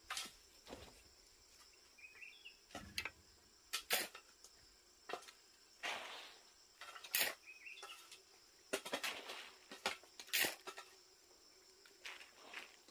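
A hoe scraping and chopping at a stony dirt floor in irregular strokes, roughly one a second, with a longer drawn-out scrape about halfway through.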